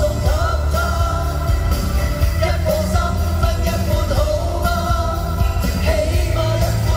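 Live Cantopop band music played through an arena sound system, heard from the audience: a steady bass line under held melody notes.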